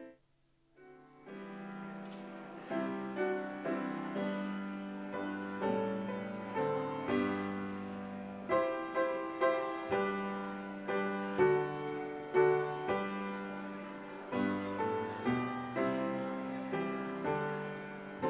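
Piano playing a slow instrumental piece, chords struck one after another and left to ring and fade; the music begins about a second in.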